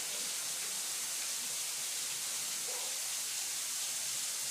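Steady high-pitched hiss, with a faint murmur of voices about three seconds in.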